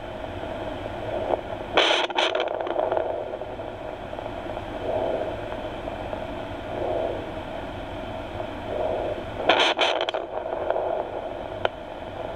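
Handheld fetal Doppler playing through its speaker: steady static hiss with slow, faint whooshing pulses, the jungle boa mother's own slow heartbeat. The probe makes two loud scraping bursts as it rubs on her scales, one about two seconds in and one near ten seconds.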